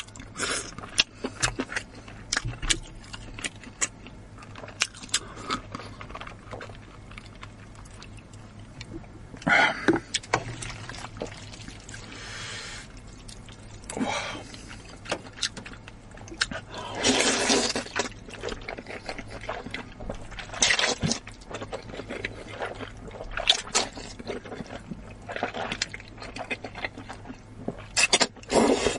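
Close-up eating sounds: wet chewing and many small lip smacks and clicks, broken by several loud slurps of wide flat noodles, the longest about 17 seconds in and another near the end.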